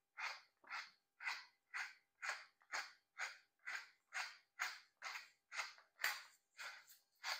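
Wooden pepper mill grinding peppercorns, twisted back and forth in a steady rhythm of about two short grinding strokes a second.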